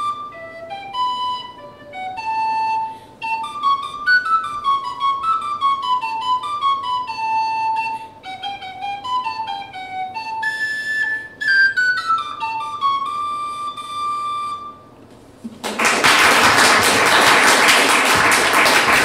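Tin whistle playing a single-line melody of quick notes that settles onto a held final note near the end; then an audience applauds, louder than the whistle.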